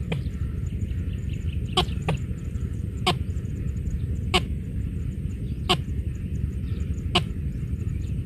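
Watercock giving short, sharp calls, one every second or so, over a steady low rumble.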